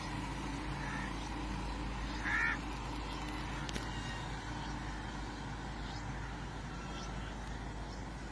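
Steady street background noise with a low hum, and one short, loud call about two seconds in.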